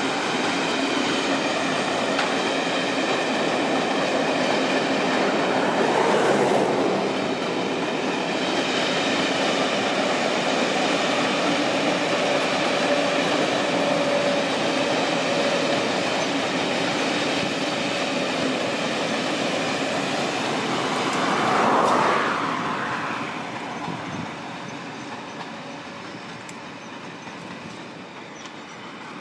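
Passenger train hauled by Class 57 diesel locomotives running past: coach wheels rolling over the rails with a steady rumble. The sound swells about three-quarters of the way through as the trailing Class 57 locomotive goes by, then fades as the train draws away.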